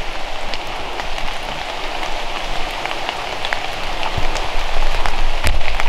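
Steady patter of rain, with scattered drop ticks and a few low thumps near the end.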